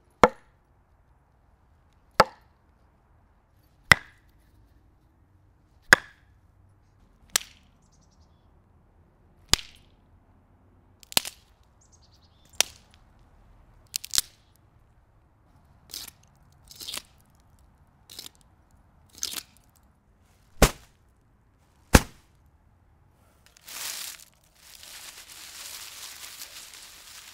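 Dry wood struck for drum samples: sharp knocks and cracks of sticks and a log hitting a tree-stump round, one every second or two, about fourteen in all. Near the end, dry leaves crumpled and tossed, rustling steadily.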